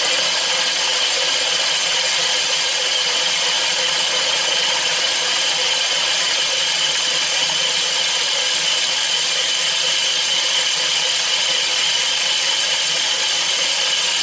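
Electric drill spinning a push reel mower's reel backwards while its six blades grind against the bed knife through lapping compound, a steady scraping whir: backlapping, the blades being sharpened against the bed knife.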